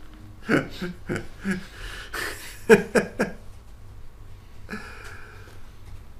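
A man laughing in short chuckles for about three seconds after telling a joke, then settling down.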